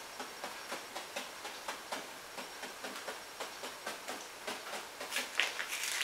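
A paintbrush dabbing paint onto a stretched canvas, a train of small soft taps about four a second, with a few louder scratchy brush strokes near the end.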